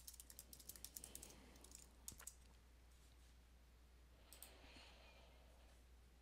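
Faint typing on a computer keyboard: a quick run of key clicks over the first two seconds or so, ending in a couple of sharper clicks. After that there is only faint room hiss, with a soft rustle about four seconds in.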